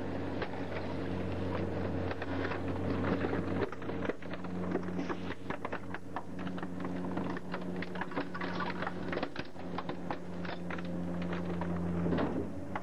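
Leach rear-loader garbage truck's packer cycling: a steady mechanical drone from the engine and hydraulics, with a dense run of crunching and cracking snaps as the packer blade crushes a bicycle and plastic Big Wheel toys in the hopper. The crunching is thickest through the middle.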